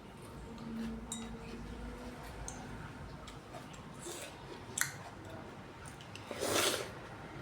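A person eating fruit: small mouth clicks and smacks, a sharp click about two-thirds of the way through, and a louder, short wet burst near the end.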